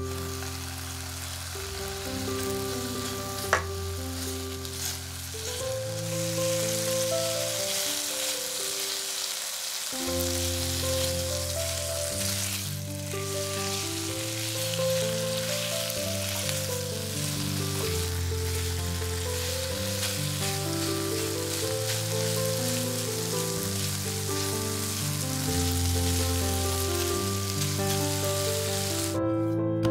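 Food frying in oil in a pan, a steady sizzle that cuts off sharply near the end, over calm background music. A single sharp click about three and a half seconds in.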